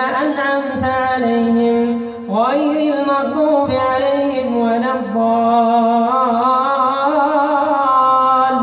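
A solo voice chanting in long, ornamented melodic phrases of drawn-out held notes with wavering turns. One phrase ends and a new one starts with a rising slide about two seconds in.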